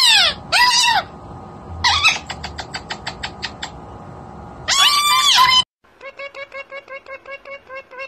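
Two golden conures screeching loudly in arching calls, with a quick run of short chips between the screeches. After a sudden cut near the end, a lutino Indian ringneck parakeet gives a softer, fast series of short repeated chirps, its "tweet".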